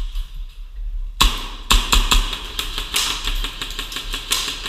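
Airsoft guns firing at close range: a dense clatter of rapid shots and BB hits that starts about a second in, with several louder hits among them.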